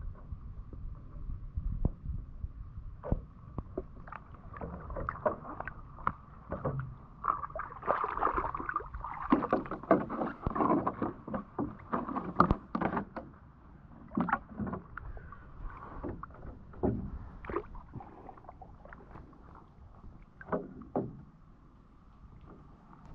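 Lake water sloshing and splashing around a person wading and working a woven bamboo basket and a plastic jar, with many short knocks and clicks, busiest from about eight to thirteen seconds in. A faint steady whine runs underneath.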